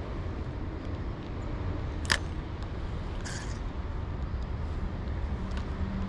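Steady low outdoor rumble, with a single sharp click about two seconds in and a short hiss a second later.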